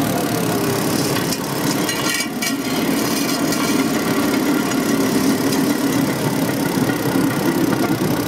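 Small engine of a motorised railcart running under throttle as the cart rolls along the rails. A brief clatter of wheels comes about two seconds in as it crosses the level crossing.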